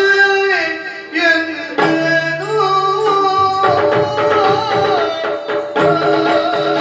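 Yakshagana music: a voice singing long held, gliding notes over a steady drone, with hand-played barrel-drum strokes.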